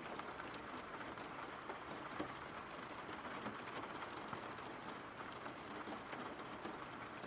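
Steady rain falling, faint, with scattered drop ticks.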